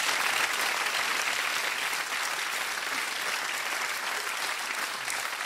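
Audience applauding, gradually dying away.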